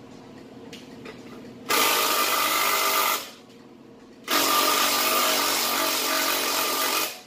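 Handheld power tool run in two bursts, the first about a second and a half long and the second about three seconds, during the refitting of a car's muffler.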